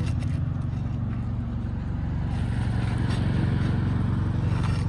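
A steady low engine hum runs throughout, with faint scraping about halfway through as an asphalt shingle is pried loose from its tar-strip seal.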